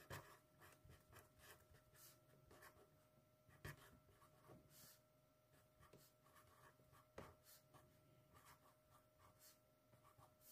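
Faint scratching of a pen writing on lined notebook paper, with three louder clicks spread through it.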